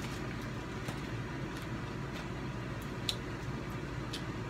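Steady low room hum, with a few faint, scattered clicks.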